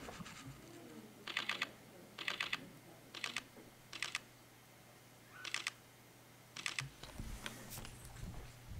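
Camera shutter firing in short bursts of three to five rapid clicks, several bursts in a row, as a photographer shoots a sequence of stills. Low rumbling comes in near the end.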